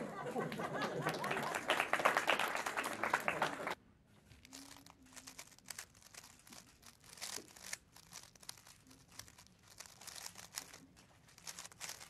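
Audience applause for a few seconds, which cuts off abruptly. After it come the faint, rapid, irregular clicks and clacks of a 3x3 speedcube being turned during a solve.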